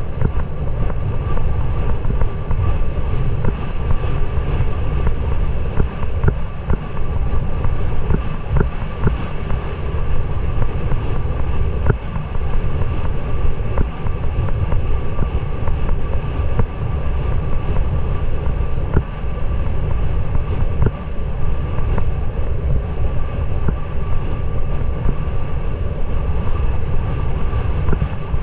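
Wind buffeting a helmet-mounted action camera's microphone on a galloping racehorse: a loud, steady low rumble, with a faint steady tone above it and a few faint knocks.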